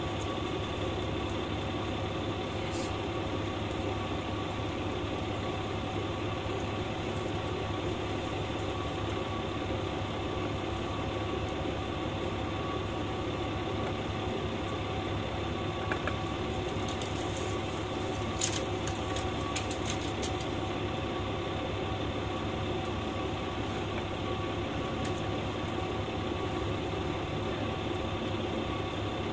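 KiHa 120 diesel railcar's engine idling steadily with the car standing still, heard from inside the cabin. A couple of light clicks past the middle.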